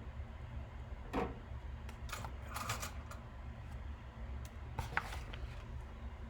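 A few scattered clicks and short clattering rattles of small tools and parts being handled on an electronics workbench, over a steady low hum.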